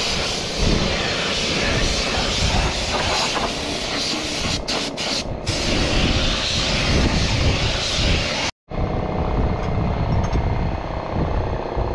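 Compressed-air spray gun hissing steadily as it sprays paint onto a steel truck chassis, over a steady low machine rumble. The hiss cuts off abruptly a little past eight seconds in, leaving the low rumble.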